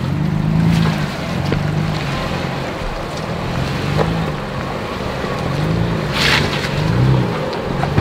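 Off-road 4x4's engine revving up and easing off about six times as it crawls over a rocky obstacle, over a steady rushing noise.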